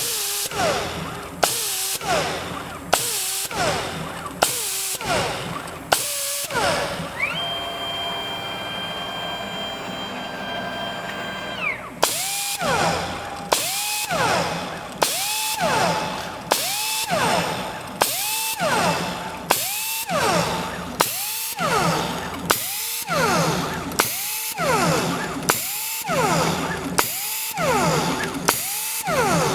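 Drill spindle on a CNC table engine-turning stainless steel plate. It grinds one swirl mark after another in a fast, even rhythm, each a sharp hit followed by a falling whir, a little more than one per second. For about five seconds in the middle the cycle stops and a steady machine whine takes over, then the swirling starts again.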